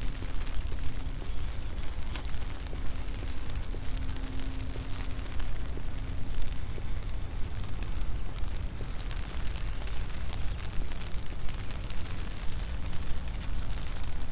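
Rain on a wet city street, with many small drops ticking close to the microphone over a constant low rumble. A steady low hum sits underneath for the first six seconds or so.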